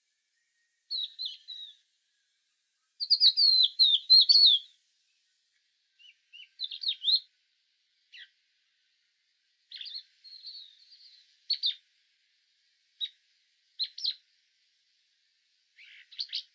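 A songbird singing in short, separate chirping phrases, the longest and loudest run of notes about three to four and a half seconds in, then shorter calls every second or two.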